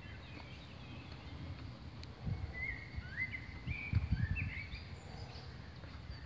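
Birds singing, a run of short chirping, gliding notes about midway, over low outdoor rumble with a few dull low thumps.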